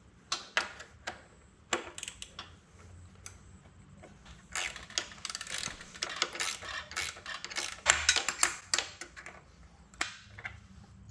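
Hand ratchet wrench clicking as 10 mm and 12 mm bolts on a motorcycle exhaust are turned, with metallic clinks of the tool against the fittings. There are scattered single clicks at first, then about halfway through a long run of fast clicking, which thins out near the end.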